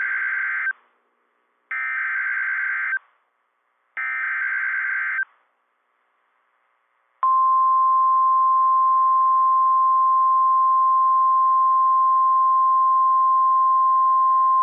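NOAA Weather Radio alert sequence. Three SAME header data bursts, each a buzzy warble about a second long with about a second between them, are followed after a two-second gap by the steady single-pitch 1050 Hz weather-radio warning alarm tone, louder than the bursts. Together they signal the start of a new severe thunderstorm warning broadcast.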